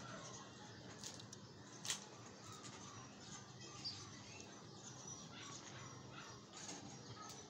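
Quiet background with faint bird chirps and a few short soft clicks, the clearest about two seconds in.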